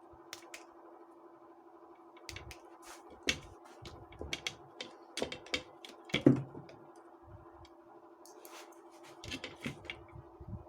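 Irregular clicks and taps of small parts and tools being handled during a repair, with a louder knock about six seconds in, over a steady hum.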